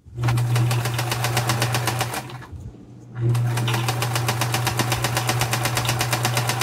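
Vintage Kenmore electric sewing machine stitching at speed: a steady motor hum under a fast, even needle clatter. It stops for about a second a little after two seconds in, then starts again and runs on.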